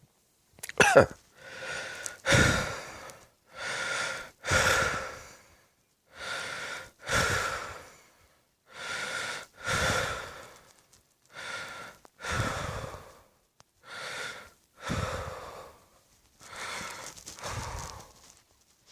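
A person breathing slowly and heavily, seven breaths about two and a half seconds apart, each a quieter draw followed by a louder one, with a faint wheezy tone in each. A short voiced gasp comes about a second in.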